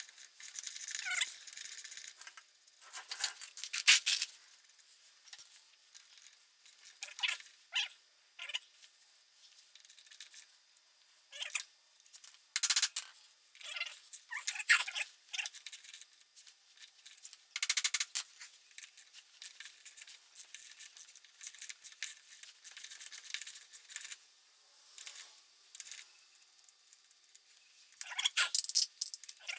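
Metal scraping and squeaking in irregular short bursts, high-pitched with nothing deep in it, as the Honda 300EX's rear axle carrier is worked loose in its housing.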